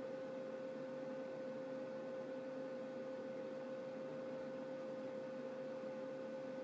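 Steady electrical hum: one constant tone with a fainter higher one over low background hiss, unchanging throughout.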